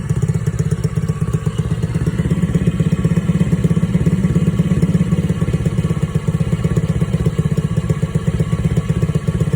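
Small gasoline engine idling very rough: a steady run of rapid firing pulses with some clatter. The owner takes the roughness and a black, sooted spark plug to mean the engine is burning oil.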